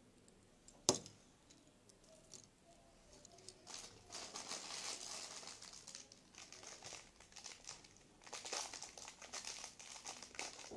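Hands sorting through a pile of costume jewelry on a table, with crinkly rustling in two stretches. A single sharp click about a second in, the loudest sound, as a piece is set down.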